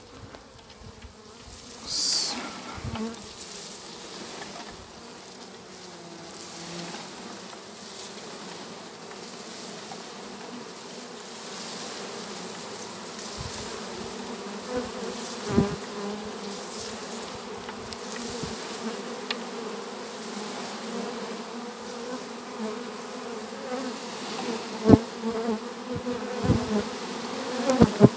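A honeybee swarm humming steadily as it is brushed from a branch down into a hive box, the hum slowly growing louder. Several sharp knocks stand out, most of them near the end.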